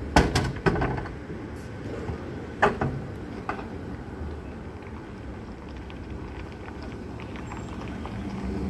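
Equipment being loaded into the open rear cargo area of a police SUV: a quick cluster of sharp knocks and clatters in the first second, another loud clunk near three seconds and a lighter one just after. Underneath is a steady low rumble of vehicles.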